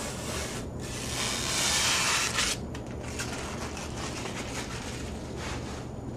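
Protective plastic film being peeled off a PC case's clear side window panel: a ripping hiss that swells for about a second and a half and stops abruptly, then lighter rustling of the loose film.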